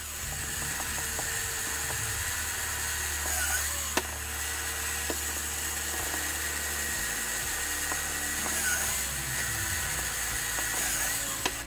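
Benchtop drill press running steadily as it drills holes along the edge of a leather knife sheath, with a sharp click about four seconds in.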